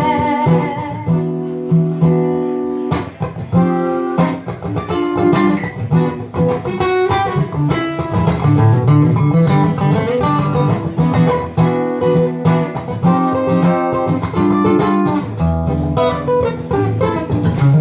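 Acoustic guitar played live in an instrumental break of a song, strummed chords mixed with plucked notes.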